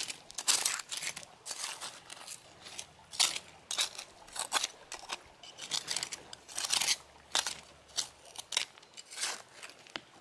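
Fallkniven F1 survival knife blade digging and scraping into gravelly soil: an irregular run of crunching, gritty scrapes, about one or two a second.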